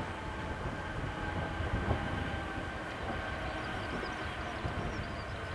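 Boeing 747's four jet engines running at low power as the airliner rolls along the runway after landing: a steady whine of several held tones over a low rumble. Gusty wind buffets the microphone underneath.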